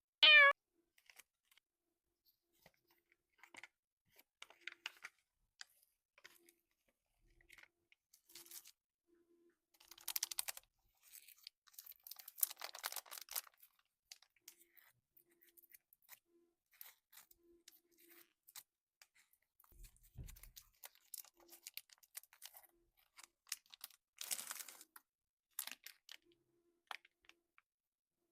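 A cat meows once right at the start. After that a candy wrapper crinkles and rustles in scattered quiet bursts, strongest about ten seconds in, again around twelve to thirteen seconds, and near twenty-four seconds, with a soft thump about twenty seconds in.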